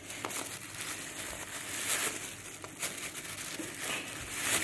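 Thin plastic carrier bag crinkling and rustling as it is handled and opened, with a few sharper crackles.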